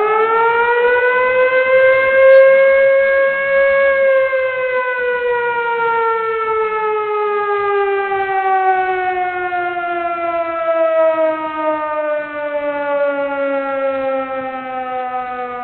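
Emergency warning siren sounding one long wail. The pitch climbs through the first few seconds, peaks about four seconds in, then slowly falls for the rest.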